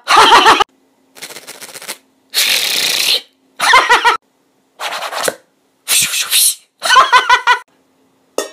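A man's voice making short, exaggerated mouth noises, yells and laugh-like sounds in about seven separate bursts, each cut off abruptly. A couple of the bursts are rougher, rattling noises rather than voiced ones.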